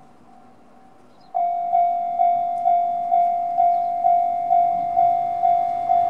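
Japanese railway level-crossing alarm, an electronic bell of the JR Tohoku type, starting about a second in and ringing at about two strikes a second: the crossing's warning that a train is approaching.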